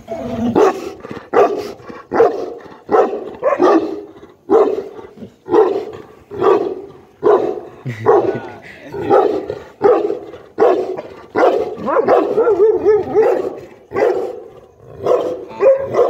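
Guard dog barking repeatedly behind a gate, one to two barks a second with no let-up.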